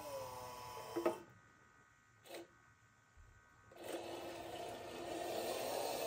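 RC Mack RD dump truck's small electric motor whining as the dump bed lowers, its pitch dropping, then stopping with a sharp click about a second in. From about four seconds in the truck's drive motor and gears whir steadily as it moves off.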